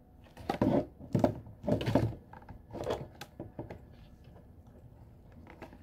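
Handling noise from a cardboard-and-plastic watch box and scissors: a string of short knocks, scrapes and rustles, bunched in the first three seconds and thinning out after.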